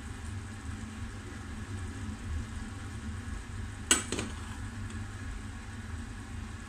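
Tofu and water spinach being stirred with a metal utensil in a pan over a steady low hum. About four seconds in, the utensil strikes the pan once with a sharp, ringing clink.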